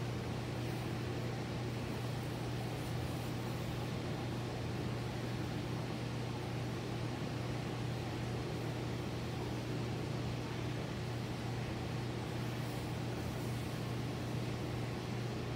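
Aquarium equipment running: a steady low hum with an even hiss.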